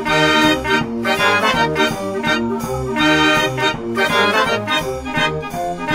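Upbeat background music with a steady rhythm, led by accordion- and brass-like instruments.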